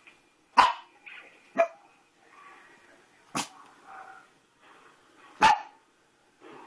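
Pekingese dog barking: four short, sharp barks a second or two apart.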